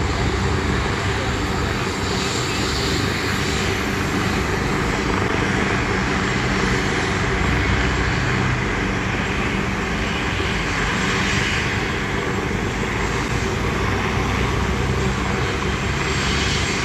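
Helicopter running steadily: a constant engine and rotor drone with traffic noise beneath it.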